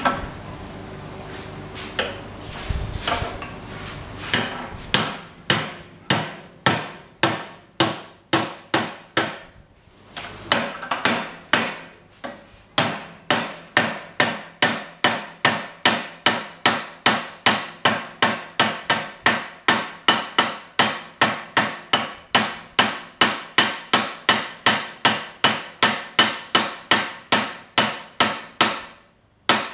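Hand hammer striking red-hot steel rebar that is bent over a steel block held in a bench vise. A few scattered blows at first, then a steady run of about two and a half blows a second, with a short break about ten seconds in.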